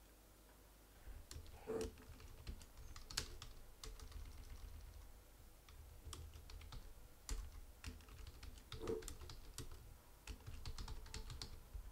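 Typing on a computer keyboard: irregular keystroke clicks, often several a second, as a line of text is deleted and new words are typed.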